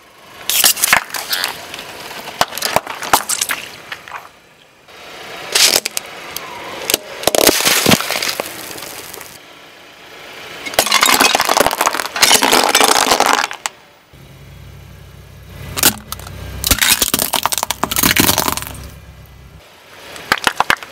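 A car tyre rolling over and crushing objects on asphalt: plastic yogurt pots and a piggy bank crack and crunch in several separate bursts, with a car engine running low under some of them.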